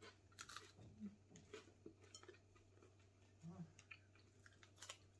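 Faint crunching and chewing of crisp air-fried baguette, short crackly crunches scattered irregularly throughout.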